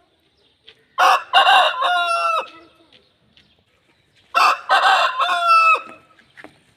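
Aseel rooster crowing twice, each crow about a second and a half long, ending in a held note.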